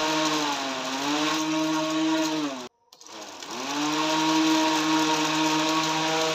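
12 V DC motor spinning a plastic cooler fan blade: a steady whine over a low hum. Its pitch sags briefly about a second in, it cuts out near three seconds in, and it spins back up with a rising whine over about a second.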